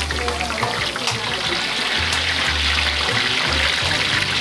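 Hot oil sizzling and crackling as molotes deep-fry in a wide pan, with background music's low bass notes coming and going.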